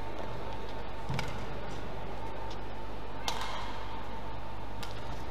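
Badminton racket strokes on a shuttlecock during a rally: a sharp hit about a second in and a louder one about three seconds in, with a few fainter ticks between, over steady sports-hall background noise.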